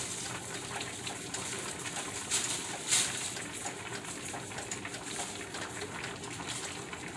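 Thin plastic bag rustling in a few short crinkles, the loudest about three seconds in, over a steady background hiss.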